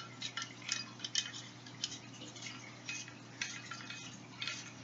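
Irregular small metallic clicks and scrapes as the handle sections of a mini folding pick shovel are twisted together and its locking collar is turned.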